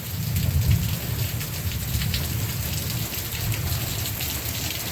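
Heavy rain falling, a dense patter of drops, with a steady low rumble underneath.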